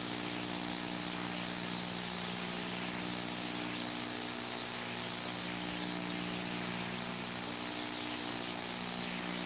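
Steady hiss with a low, even hum underneath; no speech or music.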